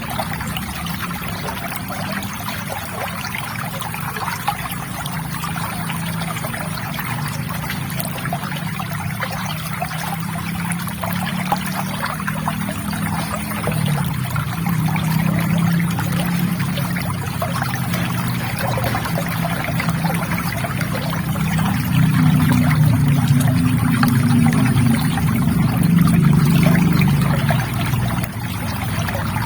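River water trickling and gurgling in a steady rush, with a deeper burbling that grows louder about three-quarters of the way in and falls back just before the end.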